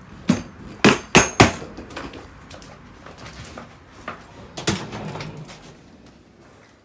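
Wheeled suitcase knocking down concrete steps: four sharp knocks in quick succession in the first second and a half, then one more a little before the five-second mark.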